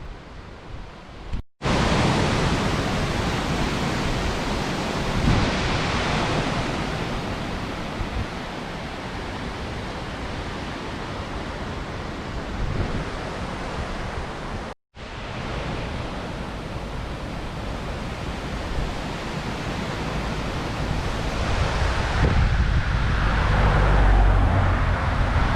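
Strong wind blowing and buffeting the microphone, a steady rushing with heavier low rumbling gusts near the end. The sound cuts out abruptly twice for a split second.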